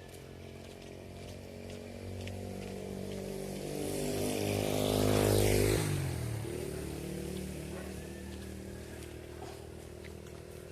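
A motor vehicle's engine approaching and passing by: it grows louder to a peak a little past halfway, its pitch drops as it goes past, and it fades away.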